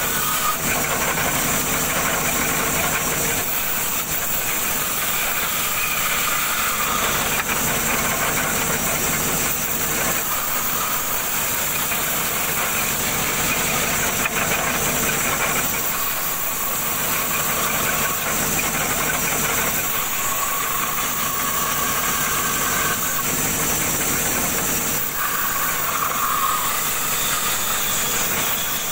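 Band saw running and cutting through a wooden block: a steady machine drone with a hissing, rasping cutting noise that swells and eases several times as the wood is fed through the blade.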